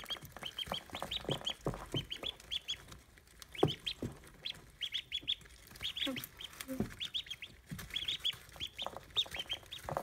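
Pekin ducklings peeping: many short, high peeps in quick runs, with a few light knocks among them, the loudest about three and a half seconds in.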